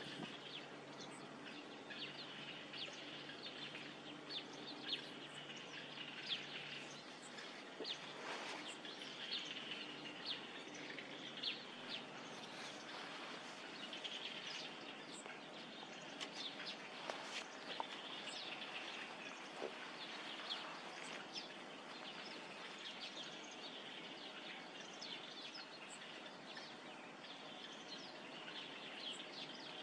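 Many short, scattered bird chirps and calls over a steady background hiss of open-air ambience, with a faint low hum during the first few seconds.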